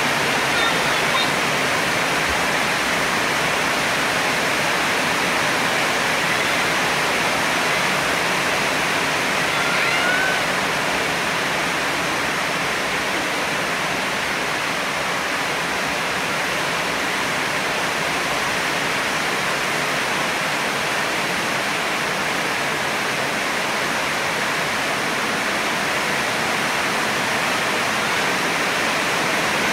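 Heavy rain falling steadily, a constant hiss.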